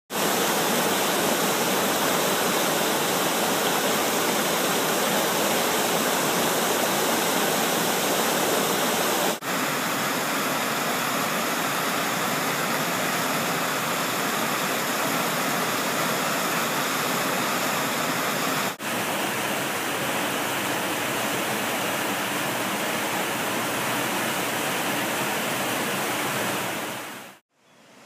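Tannery Brook's waterfall rushing, a loud, steady hiss of falling water. It breaks off briefly twice and drops away near the end.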